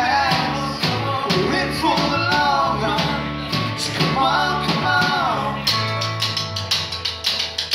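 Live rock band playing: a male voice singing over strummed acoustic guitars, electric bass and drum kit. The vocal stops a little past halfway and the band plays on, with quick drum hits toward the end.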